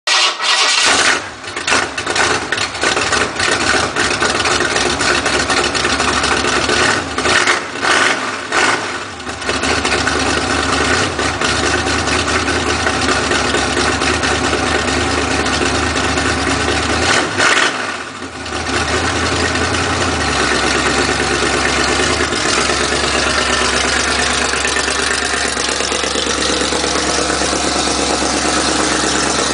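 1968 Ford Mustang Fastback V8 running loud with its exhaust cutouts open, so the exhaust bypasses the mufflers. The throttle is blipped several times in the first twenty seconds, then the engine settles into a steady idle.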